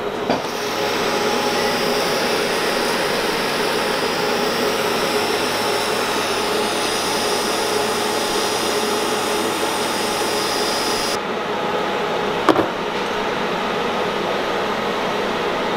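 TIG welding arc hissing steadily with a high whine as a pipe elbow is welded to its flange, cutting off about eleven seconds in. A steady lower background noise carries on, and one sharp click comes near the end.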